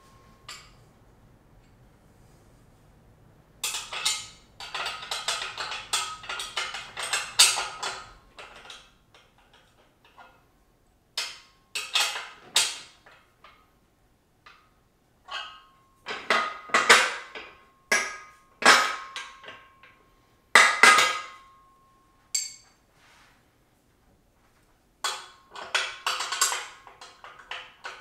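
Metal clinking and clicking from a hand tool on the steel frame of an adjustable weight bench as a short front bolt is tightened. The clicks come in irregular clusters separated by pauses, and a few of them ring briefly.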